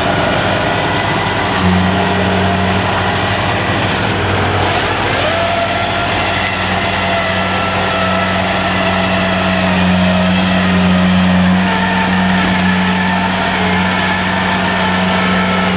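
Kubota DC70 combine harvester's diesel engine running steadily under load, its low hum growing louder about two seconds in and then holding.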